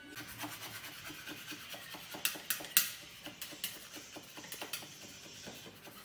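A hand tool rubbing against a wall during painting work, in quick strokes of about three or four a second. A few sharp clicks between two and three seconds in, the loudest near three seconds.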